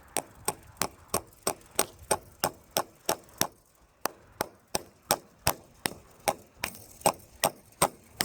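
Hammer driving a nail into a wooden fence post: a steady run of sharp strikes, about three a second.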